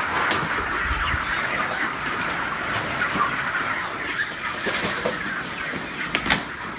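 A large flock of broiler chickens chattering together in a dense, steady din. A couple of sharp knocks come in the second half.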